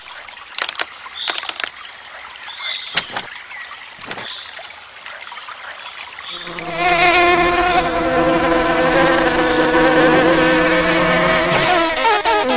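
Cartoon insect wings buzzing: a loud, steady buzz starts about six and a half seconds in and holds. Before it there are a few light taps and small high chirps.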